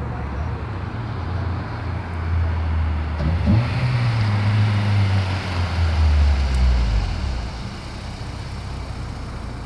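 1997 Honda Prelude's four-cylinder engine, fitted with a Crower stage 1 cam, running through an Apexi WS2 catback exhaust as the car drives up and past. The exhaust note climbs about three seconds in and is loudest as the car goes by, then drops away about seven seconds in.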